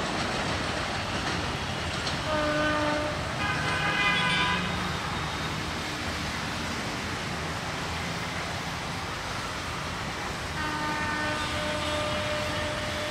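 Horn blasts over a steady rumble of rail and road traffic: a short blast about two seconds in, a higher-pitched one around four seconds, and a longer one from about ten and a half seconds.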